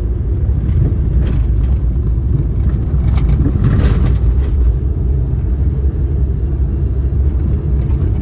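Steady low rumble of a car's engine and tyres heard from inside the cabin while driving slowly, with brief hissing swells about a second in and again around three to four seconds in.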